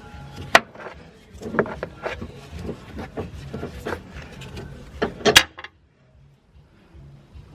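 Clinks and knocks of tools and metal parts being handled while working on a car's front suspension: a string of sharp, uneven clicks, the loudest two about five seconds in, then it goes nearly quiet.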